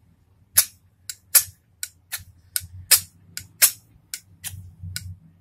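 Spine of an LW Knives Seeker II fixed-blade knife scraped repeatedly down a ferro rod: about a dozen quick, short rasps, two or three a second. The spine has no sharp 90-degree corner, so the strokes strike no sparks.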